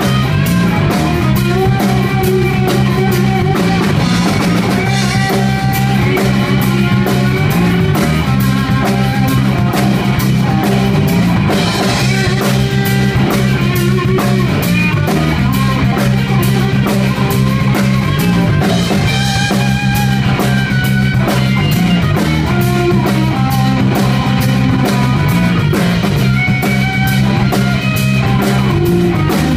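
Live blues-rock band: a Stratocaster-style electric guitar plays melodic lines over a drum kit and sustained low notes, loud and continuous.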